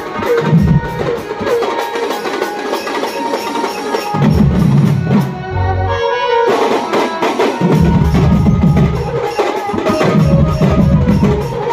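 A folk drum troupe playing a fast, driving rhythm on barrel drums, with deep thumps coming in and out. The drumming breaks off briefly about halfway through, then starts again.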